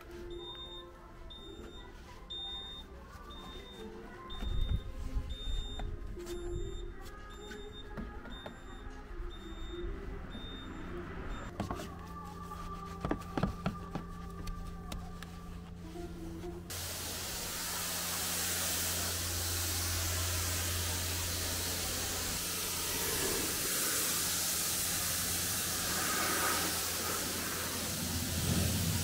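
Short, evenly repeated electronic beeps with a few knocks. A little over halfway in, a car-wash pressure washer starts spraying, a steady loud hiss over the low hum of its pump.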